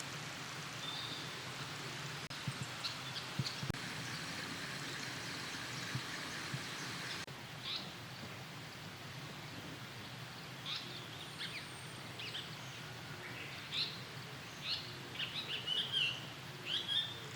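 Japanese paradise flycatcher calling: short, high chirping notes, a few scattered at first and coming thick and fast in the last few seconds, over a steady background hiss.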